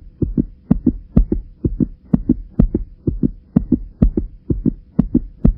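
Heartbeat sound effect: a steady run of low double thumps, about two beats a second, over a faint steady hum.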